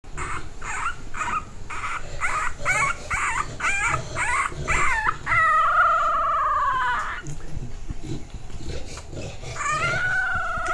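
Young English bulldog puppy crying: a run of short whimpering yelps, about two a second, then a long wail that falls in pitch, and another long wail that starts near the end.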